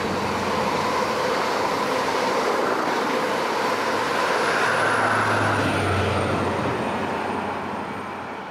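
InterCity 125 High Speed Train running past at speed, with the low hum of its rear diesel power car loudest as it goes by about five seconds in. A faint high whine drops in pitch as the power car passes. The sound then fades as the train moves away.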